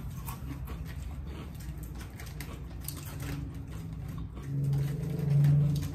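Crunching of kettle-style potato chips being chewed, with crinkling of foil chip bags. A low steady hum swells for about a second near the end and is the loudest sound.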